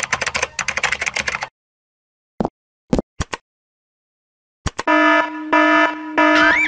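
Control-panel buttons pressed in a quick run of clicks and beeps, then a few single clicks. About four and a half seconds in, a loud alarm buzzer starts, sounding in repeated on-off pulses with a brief rising whistle near the end.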